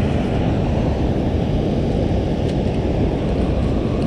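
Steady, deep rush of water pouring through a dam's open spillway gates and churning in the tailwater below.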